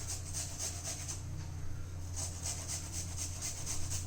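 Fresh ginger being grated on a hand grater: quick, rhythmic scraping strokes about four a second, with a short pause near the middle.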